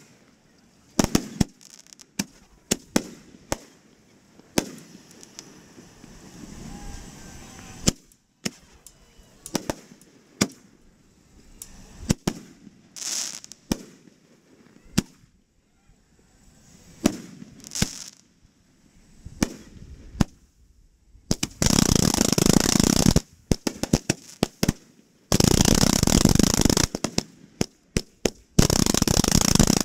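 Fireworks going off: a run of separate sharp bangs, then two long dense bursts of rapid crackling bangs about 22 and 25 seconds in, and another starting near the end.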